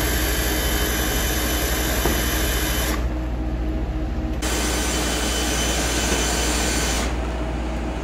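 Motorized microgreens harvester running, its rope-brush drum spinning as it sweeps cut greens into the catch bag. There is a steady low hum underneath and a hissing layer that cuts out about three seconds in, returns a second or so later and stops near the end.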